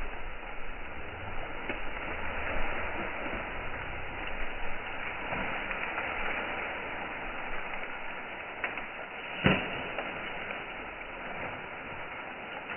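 Dry millet stalks rustling and snapping as they are gathered and cut by hand with a sickle, over a steady outdoor hiss, with a few sharp cracks, the loudest about nine and a half seconds in.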